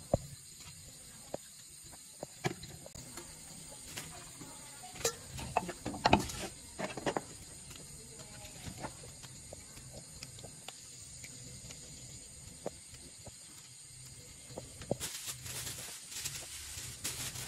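Scattered clicks, knocks and wet clatters of hands working with a knife, a plastic colander and a steel pot while cleaning small squid. There is a cluster of louder knocks about six seconds in and more clatter near the end, over a faint steady high-pitched hiss.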